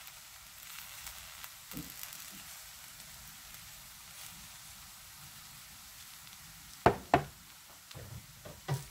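Rice crackling and sizzling against the bottom of a hot stone pot (dolsot), the sign that the crust is forming and the stone-pot rice is done. Near the end, a few sharp knocks stand out above the crackle.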